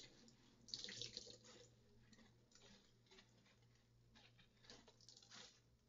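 Faint dripping and small spatters of water into a sink from a soaked plush toy being squeezed out, with a slightly louder spatter about a second in.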